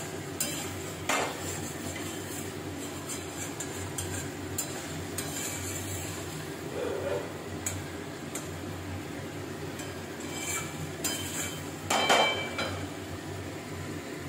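Spatula stirring in a steel kadai of fish curry, with scattered scrapes, clinks and knocks of the spatula against the metal pan. The loudest is a ringing metal knock about twelve seconds in.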